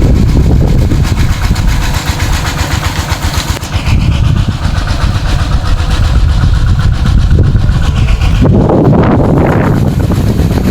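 Water pump's engine running steadily while the pond is pumped out. Wind buffets the microphone from about eight seconds in.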